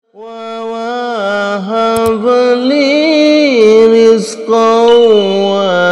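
A solo voice chanting an Arabic supplication for sincere repentance in a slow, drawn-out melody. Each note is held long and bends up and down in pitch.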